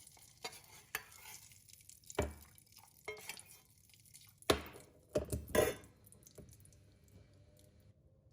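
Spoon stirring in a kitchen container, scraping and clinking, with irregular knocks. The loudest knocks come in a cluster around the middle, then the clinking dies down.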